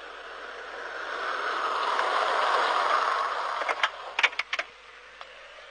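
A vehicle's noise swelling as it approaches and then fading away, followed about four seconds in by a quick cluster of sharp clicks and knocks.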